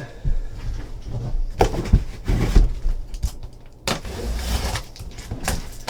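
Boxes and packaging being handled and set down on a table: several dull knocks with rustling and scraping between them.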